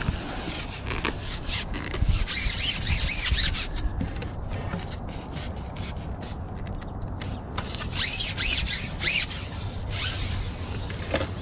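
Scratchy rubbing and rustling close to the microphone, louder in two spells about two seconds in and about eight seconds in, with a few small clicks over a low steady rumble.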